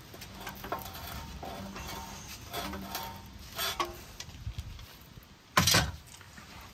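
Channel-lock pliers gripping and working a stuck spin-on oil filter's thin steel can, giving small metallic clicks and scrapes. About five and a half seconds in there is a louder, noisy scrape lasting about half a second.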